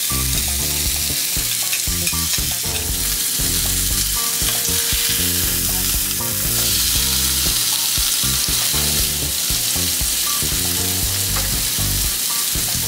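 Salmon fillets searing skin-side down in hot olive oil in a cast-iron grill pan: a steady, loud sizzle with small pops of spitting oil.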